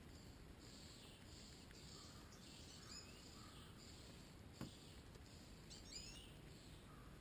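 Faint outdoor quiet with distant birds chirping briefly about three and six seconds in, and a single sharp click about halfway through.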